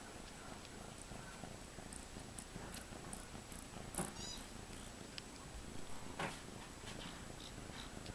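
Kitten purring close to the microphone, with scattered light clicks and rustles from the wand toy it is chewing and batting; a sharper click comes about four seconds in.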